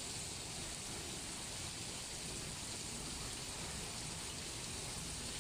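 Tropical-storm rain and wind making a steady, even hiss, with a low rumble of wind underneath.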